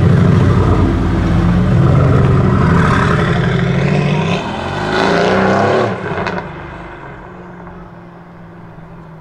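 High-performance car engine accelerating hard, its note rising, then dropping away sharply about six seconds in and fading as the car drives off.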